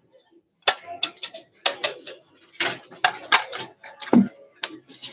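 Hammer tapping a nail through a thin perforated metal sheet on a wooden board, punching holes: a quick run of sharp metallic taps, about three a second, starting under a second in.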